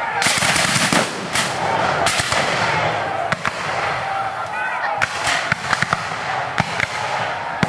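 Ragged musket fire from a line of Civil War reenactors: black-powder rifle-muskets firing blanks in a string of uneven shots, several close together and some sharper and louder than others.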